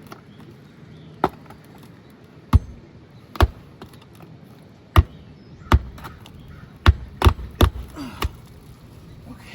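Hammer driving roofing nails back into lifted asphalt shingles: about nine sharp, irregular strikes, with a quick run of blows about seven seconds in.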